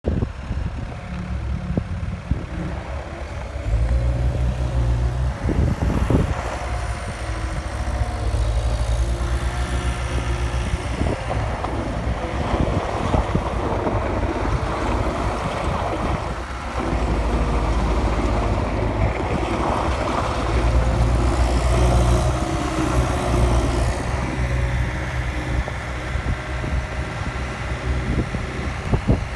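2013 Cat 262C2 skid steer's Cat diesel engine running. It comes up from a low idle about four seconds in, dips briefly past the middle, then rises again before easing off.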